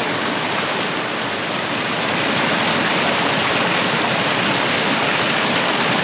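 Steady, loud rush of running water, like a creek or waterfall, filling the whole sound with no breaks.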